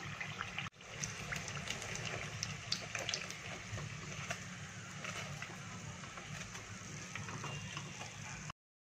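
Hot oil sizzling and crackling around samosas deep-frying, with a dense patter of small pops. The sound breaks off briefly less than a second in and stops abruptly near the end.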